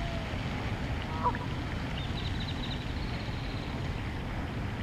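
A duck quacks once, about a second in, over a steady low rumble. Faint high bird chirps follow in a quick run a little after two seconds.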